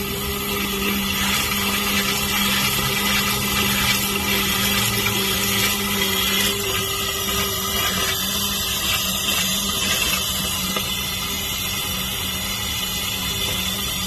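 A pump pressurising an RV's fresh-water lines hums steadily while air and water rush and sputter out of the open low-point drains, forcing the air and the last water out of the plumbing. The hum fades a little about halfway through.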